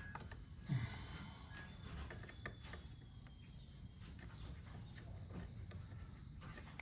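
Faint small clicks and taps of hands and a soldering tool working on an air conditioner's circuit board while a new micro switch is fitted, over a low steady hum. There is a short, louder low sound about 0.7 s in.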